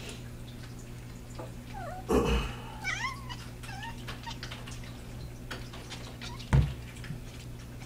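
A young black kitten hunting a small flying bug gives a few short, wavering meows about two and three seconds in. There is a knock about two seconds in and a sharper, louder thump about six and a half seconds in, as of the kitten landing or striking a surface. A steady low hum runs underneath.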